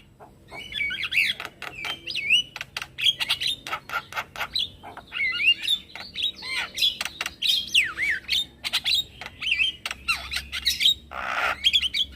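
Male Javan myna singing a fast, varied string of whistles and chirps mixed with sharp clicks, with a short harsh squawk near the end.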